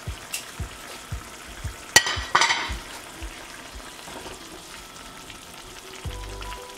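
Salsa of serrano chiles and tomato simmering and sizzling in a stainless steel frying pan while a plastic spoon stirs cubes of cotija cheese through it. A sharp click and a short louder rush come about two seconds in.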